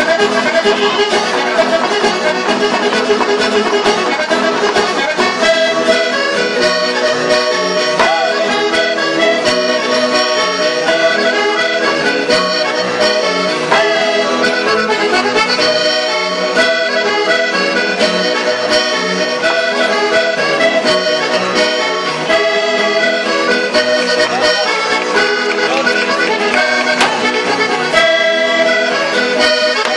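Traditional Sardinian folk dance music played on an accordion, a steady run of quick repeated notes for the circle dance.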